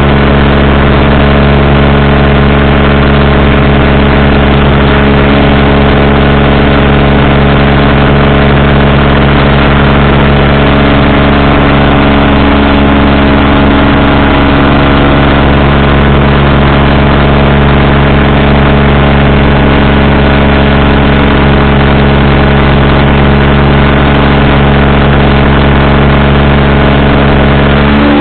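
Powered parachute's engine and propeller running loud and steady at an even pitch.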